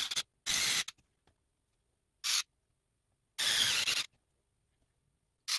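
Small cordless electric screwdriver driving small screws into 3D-printed plastic wire clips. It whirs in about four short bursts of under a second each, with silence between them.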